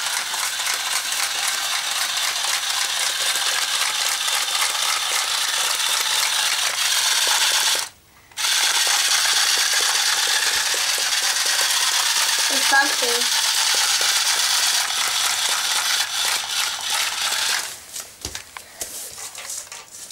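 Radio-controlled toy tarantula's small electric motor and plastic gearbox running as it walks, a fast, dense ratcheting click. It stops for a moment about eight seconds in, then runs again and stops a couple of seconds before the end.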